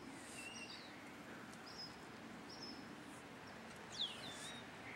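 Faint birds chirping over quiet outdoor ambience: scattered short whistled notes, with a louder falling call about four seconds in.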